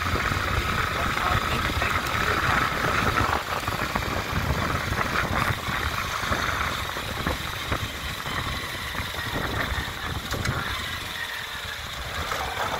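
Motorcycle engine running steadily, a little quieter near the end.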